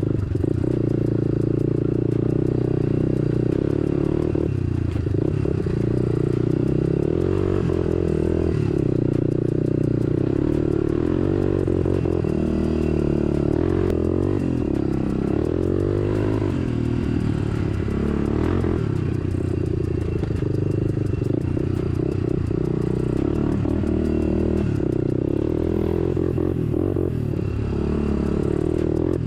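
Honda dirt bike engine running under a rider, its pitch rising and falling over and over as the throttle is opened and rolled off, with some rattling clatter.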